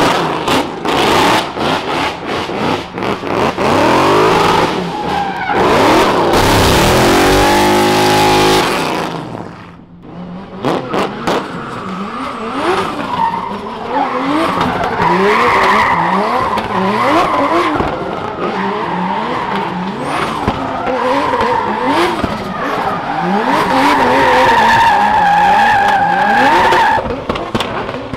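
Drift cars doing donuts: engines revving up and down in quick blips over the squeal of spinning, sliding rear tyres. The sound drops away briefly about ten seconds in, then a second car takes over, its tyre squeal holding a steady high note near the end.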